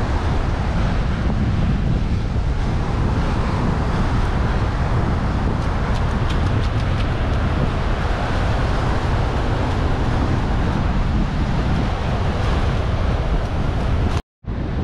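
Wind buffeting the microphone over the steady rush of North Sea surf breaking on a sandy beach. The sound drops out briefly near the end.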